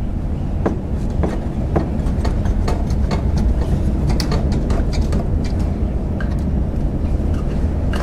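Scattered clicks and knocks of the Ford Focus Mk3's lower radiator support bracket being worked loose from the bottom of the radiator by hand, over a steady low rumble.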